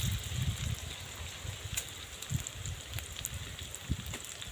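Low, gusting wind rumble on the microphone over a faint steady hiss, with a few small sharp crackles from the wood fire and the pot of masala cooking on it.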